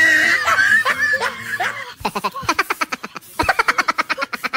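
A voice sounds for the first couple of seconds, then rapid laughter breaks out in two quick runs from about halfway in.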